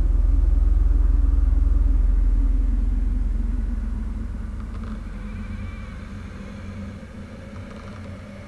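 A deep, steady low rumble that fades away gradually over the second half.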